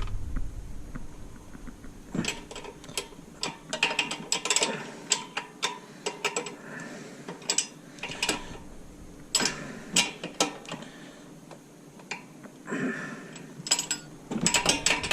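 Ratchet wrench clicking in several short bursts as bolts on the mud motor kit are snugged up, not fully tightened.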